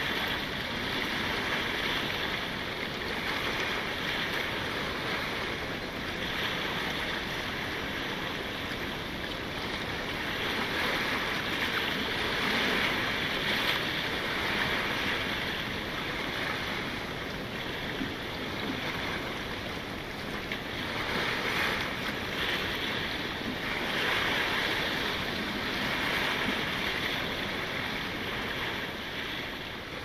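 Small waves breaking and washing over a pebble and rock shore, a steady wash that swells and eases every few seconds.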